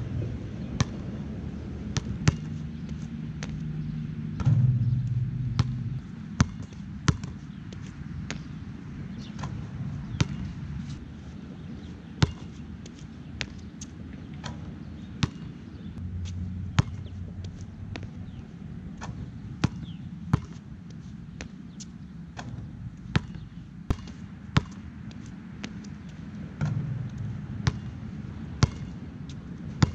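Nike Jordan Hyper Grip 4P basketball bouncing on a court in sharp, irregularly spaced thuds, over a low rumble that swells twice.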